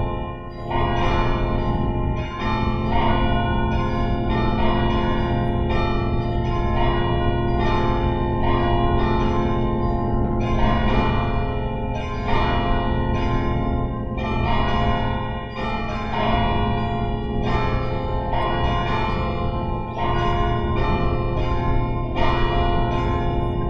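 Church bells ringing a continuous peal: many overlapping strikes, each ringing on into the next.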